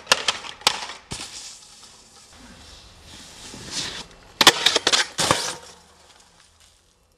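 Snowboard striking and grinding on a metal stair handrail: a clatter of sharp knocks at the start, a rising scrape of the board over snow, then a second burst of clattering impacts about four and a half seconds in.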